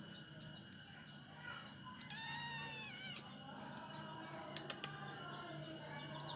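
An Angora cat meowing once, about two seconds in, a single call of about a second that rises and then falls in pitch. A little later come three sharp clicks close together, the loudest sounds here, over a faint steady hum.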